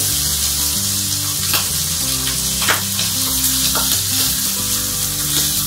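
Pork chops sizzling in butter and olive oil in a hot cast iron skillet as they are turned over with tongs, with a few sharp clicks of the tongs.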